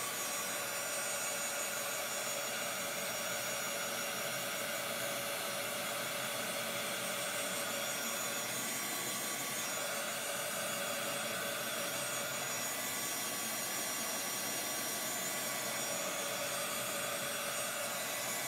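Steady whooshing air noise of a running electric blower motor, with a constant hum underneath and no change in speed.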